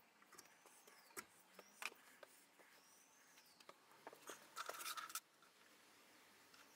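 Faint handling sounds of small tools on a wooden workbench: scattered light clicks and taps, with one short scratchy rustle about four and a half seconds in.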